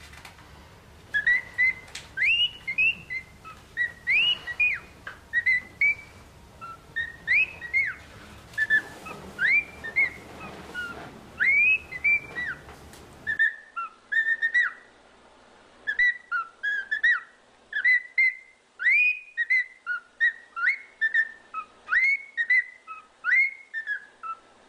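A man's whistling nose: a long run of short, high-pitched whistles, each sliding up and then down, about one to two a second.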